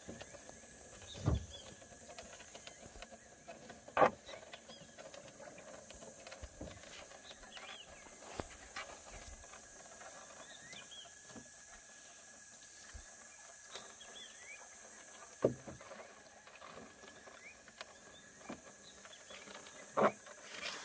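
Outdoor lakeside ambience: a steady high-pitched insect drone with scattered faint bird chirps. A few sharp knocks stand out, the loudest about four seconds in and near the end.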